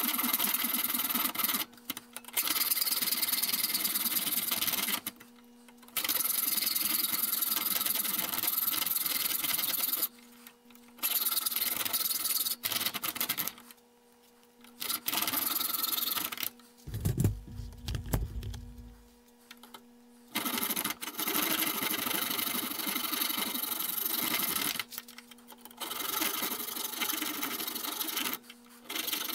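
Hacksaw blade rasping back and forth in the square threads of a steel C-clamp screw held in a vise, scraping out scale and excess silver solder. It runs in stretches of several seconds with short pauses between them, and a brief low rumble a little past halfway.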